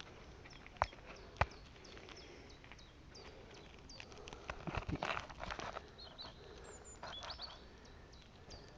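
Crunching and crackling on gravel as a European hedgehog noses and shuffles among the stones, with two sharp clicks about a second in. A small bird chirps again and again in the background with short high falling notes.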